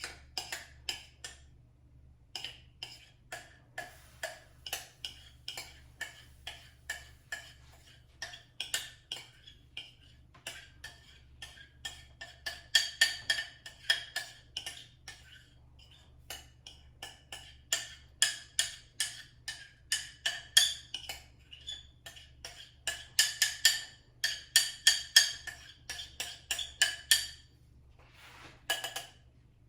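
Quick, uneven run of strokes from a utensil knocking against a bowl that rings at the same pitches each time, typical of mixing batter by hand. The strokes come in bursts of a few seconds with short pauses, ending in a brief rustle near the end.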